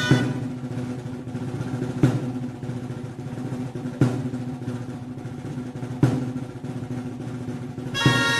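Festival drumming in a steady rolling pattern, with a loud accented stroke every two seconds while the reed pipes rest. The piped melody comes back in near the end.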